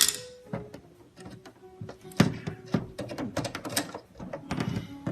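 Hands handling and removing packing from a new dehumidifier: a string of irregular clicks, knocks and thunks.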